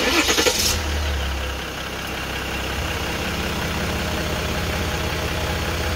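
Jeep Grand Cherokee 3.0-litre EcoDiesel V6 running, loud for about the first second and then settling to a steady, even idle.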